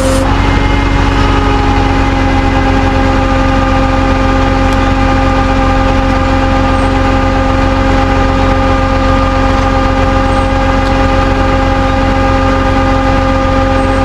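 Vehicle engine running at a steady speed: a constant, unchanging hum with strong low rumble.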